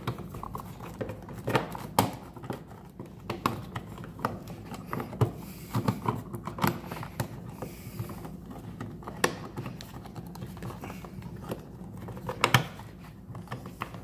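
Irregular clicks, taps and scrapes of hands working a light switch and its bundle of house wiring inside a wall electrical box, the sharpest clicks near the end.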